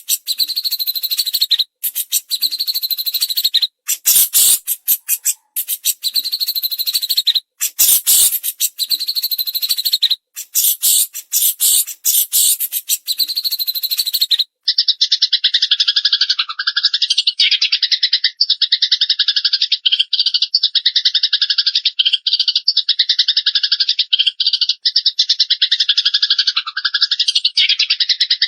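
Recorded songbird calls from a birdsong training track of fighting Eurasian tree sparrows and cililin. For about the first half there is harsh, rapid chattering in stop-start spells. It changes abruptly to one unbroken, very fast trill.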